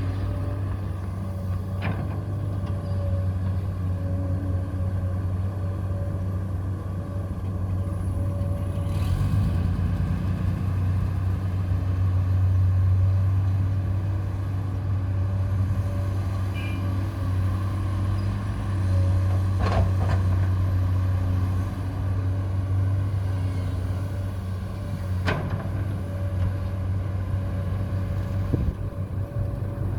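Construction-vehicle motor running steadily with a strong low hum and a faint, wavering whine above it. A few sharp clicks come through, about two seconds in and twice in the last third.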